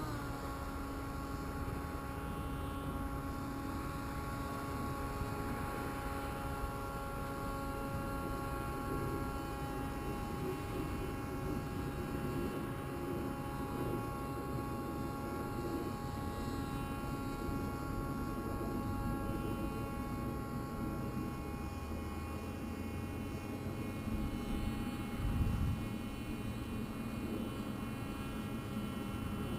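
The Oxy's motor running steadily in flight, a level droning hum whose pitch settles just after the start, with low wind rumble underneath and a brief louder bump near the end.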